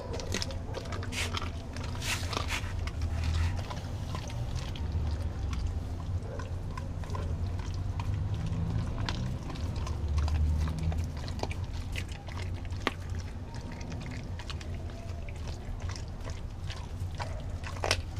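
Doberman chewing a piece of raw meat on a tile floor: wet chewing with irregular sharp cracks, over a low steady rumble.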